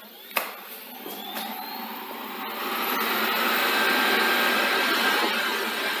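Xiaomi Mi Robot Vacuum 2 (Roborock S50) robot vacuum: a click, then its suction fan spinning up with a rising whine over the first few seconds and running steadily.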